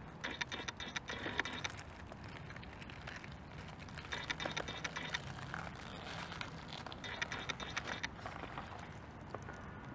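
1/10-scale RC rock crawler with a Fusion Pro brushless motor and Injora Comp Pin tyres crawling over stones, its tyres crunching dry leaves and gravel in three spells of crackling clicks, each lasting about a second.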